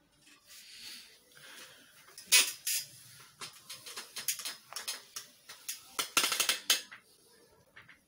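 A quick run of sharp clicks and knocks, like a clatter, that comes and goes. The loudest hits are about two seconds in and again around six seconds.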